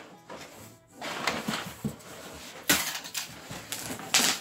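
Cardboard box flaps being pulled open and crinkled kraft packing paper rustling, with a sharp cardboard scrape or knock a little over halfway through and a louder one near the end.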